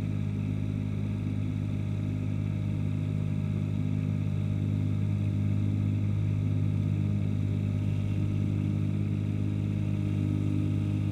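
Ransomes HR300 ride-on mower's engine running at a steady speed.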